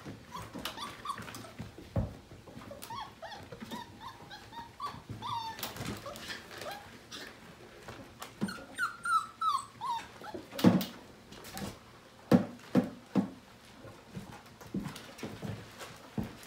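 Five-week-old Portuguese Water Dog puppies whining and yipping in play, with many short high-pitched cries and a quick string of falling ones. Then come several sharp knocks, the loudest sounds, a little past the middle.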